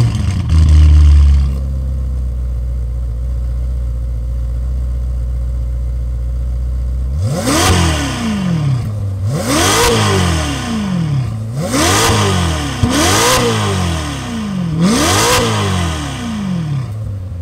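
Ferrari GTC4Lusso T twin-turbo V8 through an IPE valved exhaust with high-flow cats and an X-pipe. It fires with a loud flare and settles to a steady idle, then about halfway in it is revved five times, each rev rising and falling quickly in pitch.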